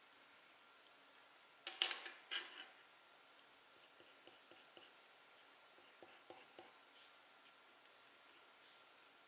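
Faint drawing sounds: a drawing tool scratching across a surface in a short run of strokes about two seconds in, followed by scattered light taps and ticks.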